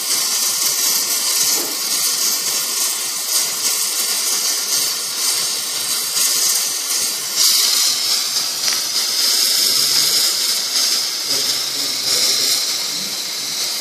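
Gas brazing torch flame hissing steadily while it heats a copper refrigerant-line joint at a refrigerator compressor; the hiss gets brighter and sharper about seven and a half seconds in.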